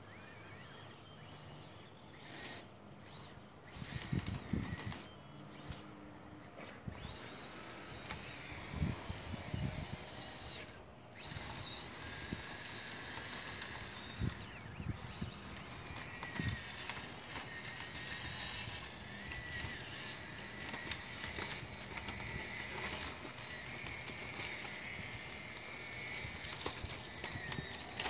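Whine of a radio-controlled model hydraulic excavator's electric pump and track motors, rising and falling in pitch as it drives and works, with a few low thumps in the first half.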